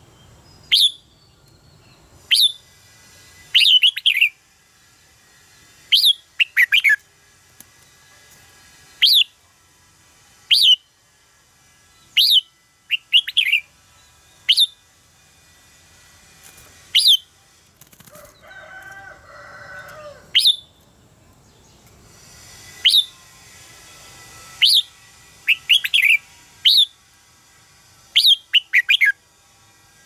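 Red-whiskered bulbul calling: short, sharp notes that fall in pitch, repeated every second or two, some coming in quick twos and threes.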